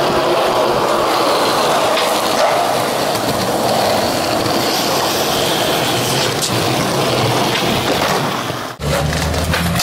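Skateboard wheels rolling on concrete: a steady, loud rolling noise that cuts off abruptly shortly before the end.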